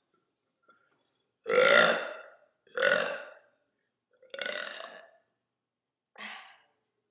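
A woman burping four times in a row, each burp under about a second long, the first the loudest and each later one weaker.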